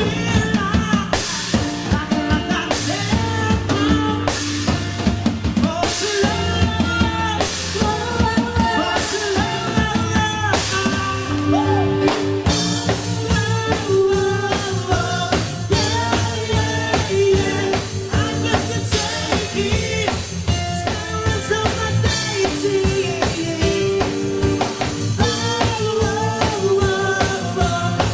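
Dance music with a steady drum-kit beat and singing.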